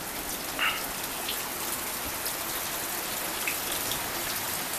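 Floodwater rushing over a driveway and around an overwhelmed culvert: a steady hiss of running water. A few faint short chirps come through it.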